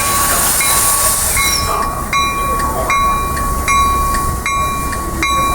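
A train on the move: a steady high whine with a regular repeating clack a little faster than once a second, and a hiss over the first second and a half.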